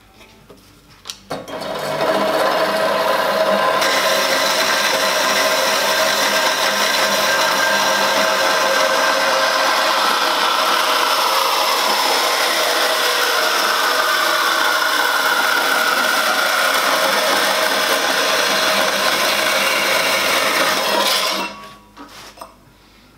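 Small portable metal-cutting bandsaw starting up and cutting through stainless steel tube, a steady grinding hiss with a whine, one tone of which drops partway through the cut. Its blade is too coarse and chips the cut edges. It starts about a second in and shuts off shortly before the end.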